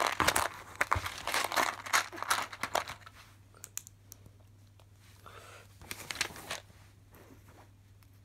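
Loose LEGO pieces clattering and clicking in a cardboard box as a hand sifts through them. It is busiest in the first three seconds, then thins to scattered clicks, with another burst of rattling about six seconds in.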